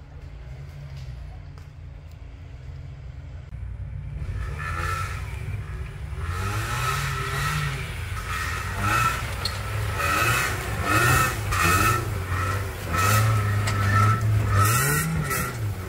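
Off-road 4x4's engine running at a steady low idle, then revved hard in repeated rising and falling surges from about four seconds in.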